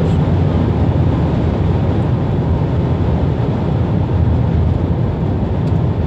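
Steady low rumble of a car driving at motorway speed, tyre and engine noise heard inside the cabin.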